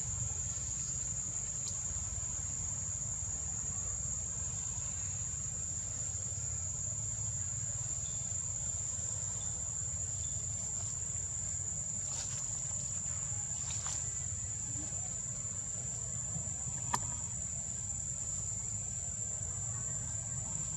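Forest insects droning in one steady high-pitched tone, with a low rumble underneath and a few faint clicks, the sharpest about three-quarters of the way through.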